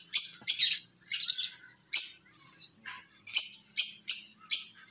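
Light hand-hammer strikes on metal in quick runs, about three a second, each a sharp high-pitched clink with a short ring.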